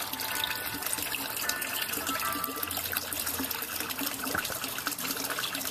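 Water trickling and splashing steadily into a fish pond.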